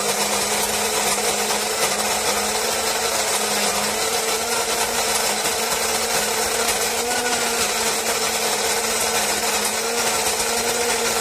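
Wancle electric flat-burr coffee grinder running, its metal burrs grinding a two-cup dose of beans at a medium setting: a steady motor hum under a dense grinding rasp.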